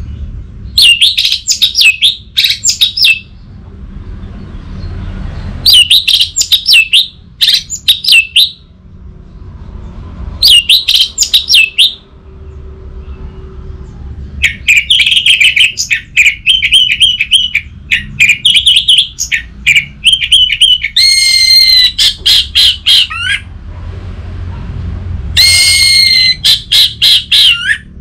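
Orange-headed thrush singing loud, rapid bouts of varied whistles and trills, about six song bouts with pauses of a second or two between them, over a low steady background hum.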